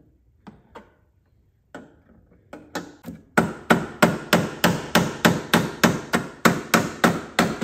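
Small hammer tapping on metal to bend a protruding tab under. It starts with a few light, scattered taps. From about three seconds in it settles into a steady run of sharp strikes, about three or four a second.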